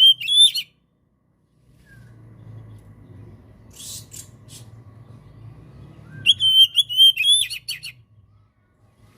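Oriental magpie-robin (kacer) singing: two phrases, each a run of repeated clear whistled notes ending in a few quick sharp notes, one right at the start and one about six seconds in. A low hum runs underneath, with a brief hiss about four seconds in.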